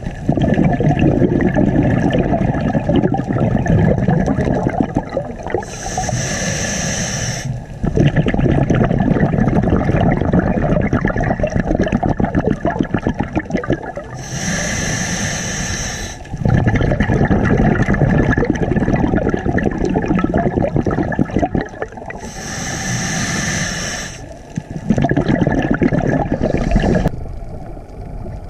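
Scuba diver breathing through a regulator, heard through the underwater camera housing: long stretches of bubbling rumble as exhaled air escapes, broken three times by a short hiss of a breath drawn in, about every eight seconds.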